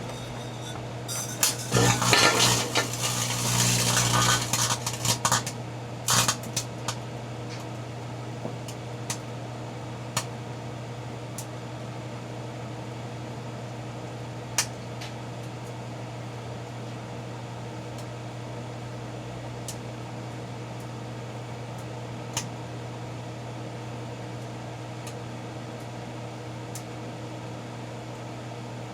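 A 1987 GE microwave oven running with its steady low hum while a large floodlight bulb inside it is heated. About two seconds in comes a loud few seconds of crackling and glassy clinking from the bulb, then only a few sharp ticks over the hum.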